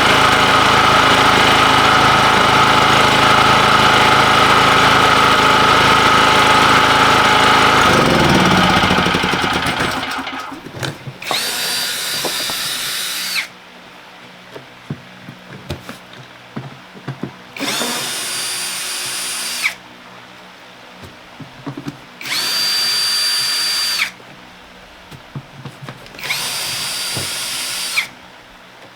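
A machine runs steadily, then falls in pitch and winds down about eight seconds in. Then a power drill runs in four short bursts of about two seconds each, with a high whine, and small clicks and knocks between the bursts.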